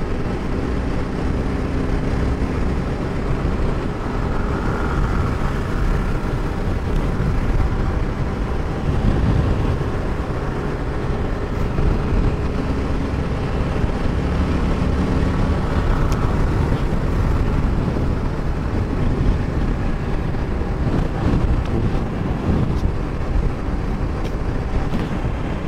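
TVS Apache RR 310's single-cylinder engine running steadily at cruising speed on the highway, mixed with wind and road noise.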